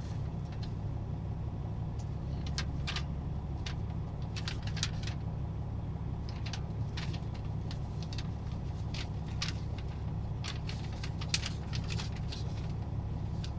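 Truck engine idling steadily, a low hum heard inside the cab, with irregular crinkling and rustling of paper sheets being leafed through and handled.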